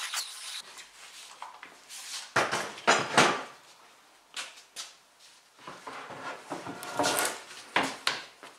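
Bar clamps being taken off and heavy solid-timber panels being shifted and stacked on a wooden workbench: a string of wooden knocks, clunks and metal clatter, loudest around two to three seconds in. A dust-extractor hose hisses briefly at the very start.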